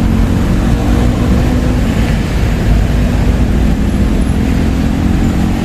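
Steady road-traffic noise, with vehicle engines running and a low rumble.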